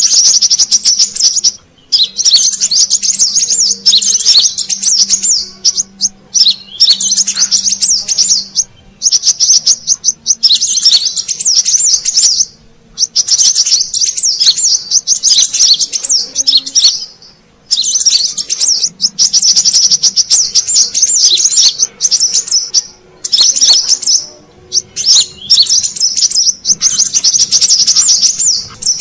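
Brown-throated sunbird (kolibri kelapa) song played as a lure call: repeated bursts of rapid, high twittering chirps, each a second or two long, with short pauses between.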